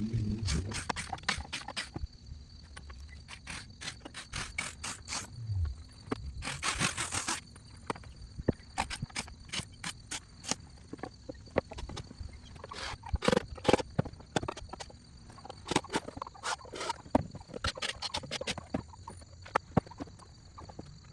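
Irregular clicks, knocks and scrapes of hands working on hard parts, with a brief hissing noise about seven seconds in.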